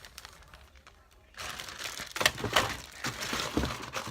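Plastic slime containers and slime being handled: a run of crinkling and sharp clicking that starts about a second and a half in.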